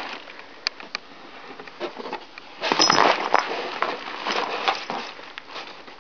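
Cat moving inside a cardboard box, the cardboard rustling and scratching in short, uneven bursts, loudest about three seconds in.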